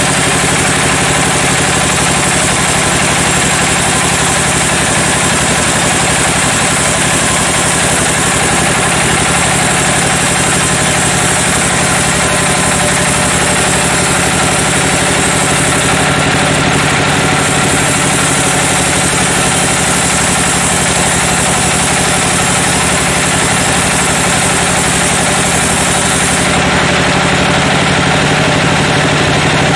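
Sawmill band saw running steadily, its blade cutting lengthwise through a teak log with a high hiss over the machine's low hum. The hiss drops out briefly about halfway through and stops a few seconds before the end while the saw keeps running.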